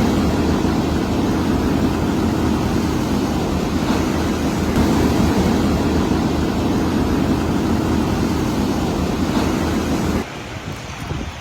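Loud steady rushing noise with a low rumble underneath, cutting off abruptly about ten seconds in.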